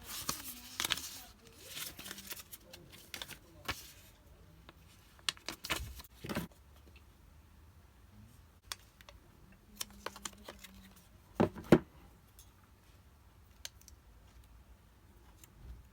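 Handling noises of unboxing a phone: scattered rustles, taps and clicks of cardboard and plastic packaging, with two sharp knocks close together about three quarters of the way through.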